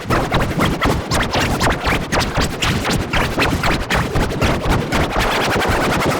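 Heavily distorted, glitchy edit of a children's cartoon song: music turned into a dense, noisy, rapid stutter like record scratching.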